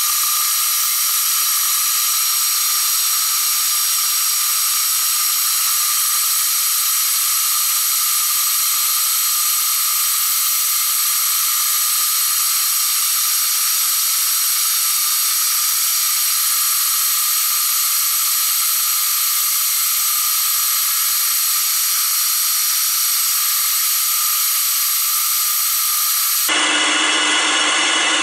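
Diamond cup wheel spinning in the spindle of a Deckel FP1 milling machine, grinding the cutting edges of an end mill: a loud, steady high hiss with almost no low sound, which changes abruptly near the end.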